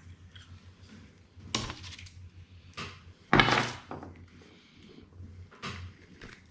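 Small hard objects handled on a tabletop: a few knocks and clatters, the loudest a sharp knock about three and a half seconds in, another about a second and a half in.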